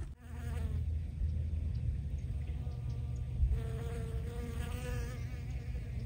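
A bee buzzing close by among clover flowers, heard in two passes: briefly near the start, then longer through the middle, its pitch wavering. A low steady rumble lies beneath it.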